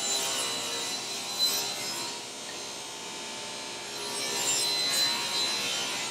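Table saw with its blade tilted for a bevel, ripping a pine board lengthwise: the motor's steady whine runs under the cutting noise. The cutting grows louder about four seconds in as the board is pushed through to the end of the cut.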